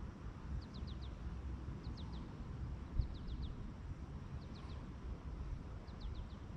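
A bird calling over and over: short runs of three or four quick, high chirps, each dropping in pitch, about every second and a half. Under it is a steady low rumble, with a soft thump about three seconds in.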